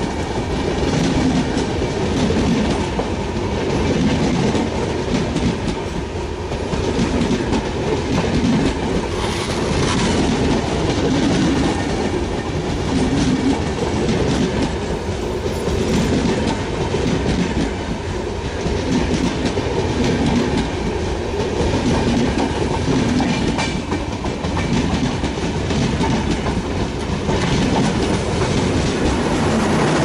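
Passenger coaches of a Shatabdi express rolling past at close range: a steady rumble with a rhythmic clickety-clack of wheelsets over the rail joints, beginning to fade at the very end as the last coach goes by.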